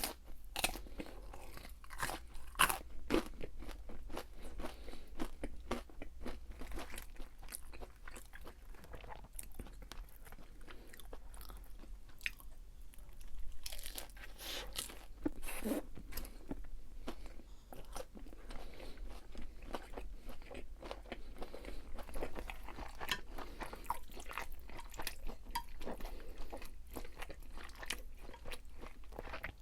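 Close-miked chewing with crisp crunching of deep-fried food, irregular crackly bites throughout.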